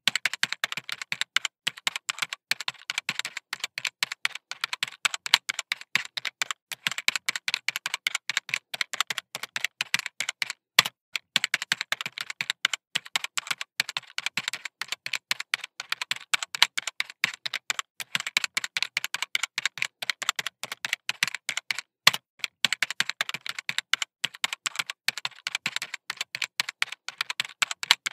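Fine-tip pen on paper making rapid short scratchy ticks, several a second, as it draws one tiny circle after another.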